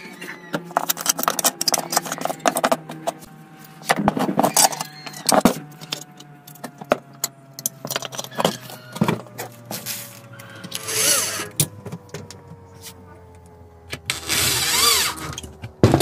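Metal parts of a small four-stroke grass-cutter engine clicking and clattering as they are handled and fitted together during reassembly. Two longer noisy bursts, about a second each, come near the middle and near the end, over a faint steady hum.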